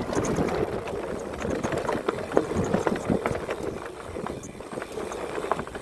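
Full-suspension mountain bike rolling over roots and dirt on singletrack: tyre noise with irregular knocks, clicks and rattles from the bike as it hits the roots.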